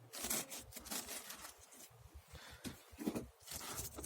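Dry papery wasp-nest material crackling and tearing in small irregular bits as the nest is picked open.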